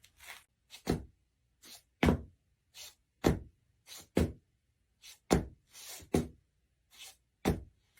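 A series of short knocks or thuds, irregularly spaced at about two a second, each falling quickly in pitch, with near silence between them.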